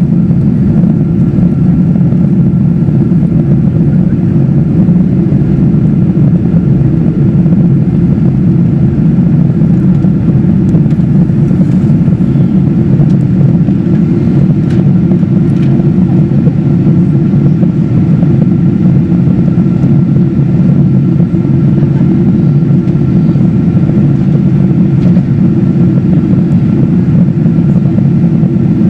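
Steady cabin noise of a Boeing 777-200ER in flight: airflow and its Rolls-Royce Trent 895 engines as an even, low roar, with a faint steady high tone over it.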